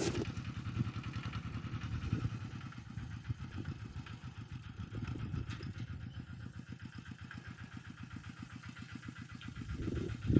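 Tractor engine running steadily under ploughing load, a rapid, even pulse of firing strokes. It grows a little fainter through the middle and louder again near the end.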